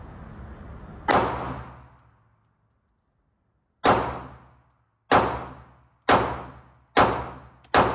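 Six shots from a 9mm Glock pistol, each followed by a short ringing echo. The first comes about a second in and the next nearly three seconds later, as in slow aimed fire. The rest come about one a second and quicken near the end.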